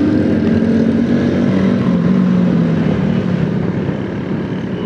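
A 70cc motorcycle's engine running as it is ridden through traffic. The note is steady and drops a little in pitch past the middle as the bike slows.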